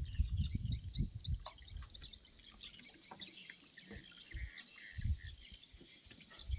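Small birds chirping in many short high notes, over irregular low rumbles that come and go, strongest in the first second and again near the end.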